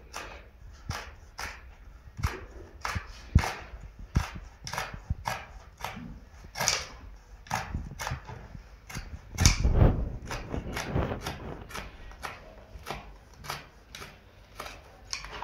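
Carpet shears snipping through the edge of a sisal carpet as it is trimmed, a crisp cut about every half second, with one louder thump about two-thirds of the way through.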